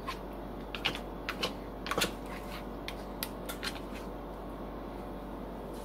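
Black plastic spoon tapping and scraping against a glass baking dish while spreading sauce over pasta: a scatter of light clicks, most in the first few seconds, over a faint steady hum.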